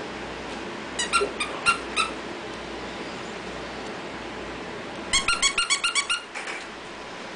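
Squeaker in a plush dog toy being squeezed by hand. There are a handful of short squeaks about a second in, then a quick run of about ten squeaks around five seconds in.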